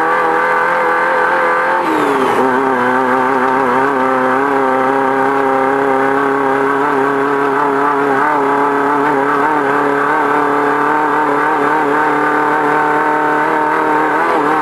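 Off-road race car's engine running hard at steady high revs, heard from inside the car; its pitch drops about two seconds in and then holds level.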